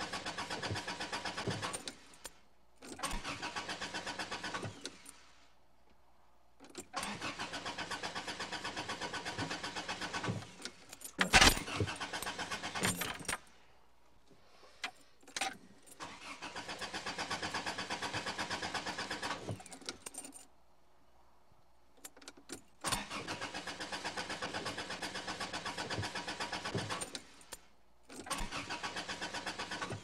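A car's starter motor cranking the engine in repeated spells of a few seconds each, about six tries with short pauses between, the engine never catching: a crank-no-start fault. A brief loud knock comes about eleven seconds in.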